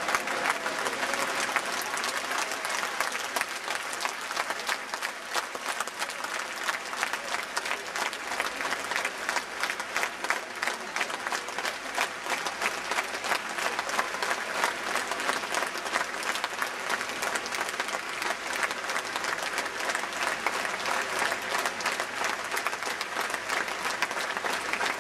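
Large crowd applauding: a dense, steady mass of many hands clapping.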